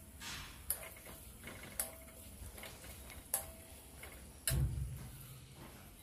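Metal spatula stirring and scraping frying onions in a metal kadai, with four sharp clinks against the pan that each ring briefly; the last, about four and a half seconds in, is the heaviest, with a low knock.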